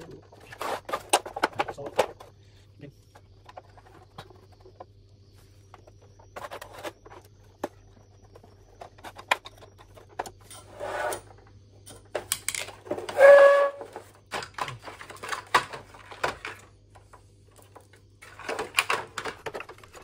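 Hands and a screwdriver working on a split air-conditioner indoor unit: scattered clicks, knocks and scrapes of plastic casing, metal frame and wiring. A short, louder squeak comes about 13 seconds in, over a faint steady low hum.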